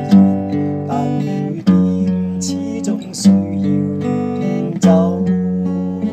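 Fender acoustic guitar played solo: chords ring on, with a sharp strummed attack about every second and a half and lighter picked notes between them.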